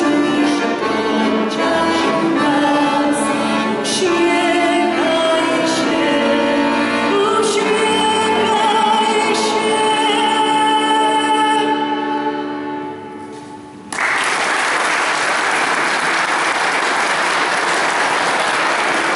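A man singing to his own piano accordion; the song ends on a held chord that fades away. About two-thirds of the way through, the audience starts applauding and keeps clapping.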